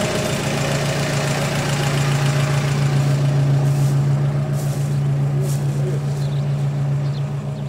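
GAZelle van's engine idling, a steady unbroken hum.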